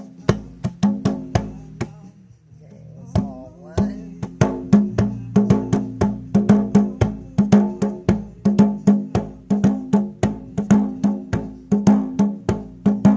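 A hand drum struck in a steady, quick rhythm of about four beats a second, each stroke ringing at a low pitch. It breaks off briefly about two seconds in and then carries on.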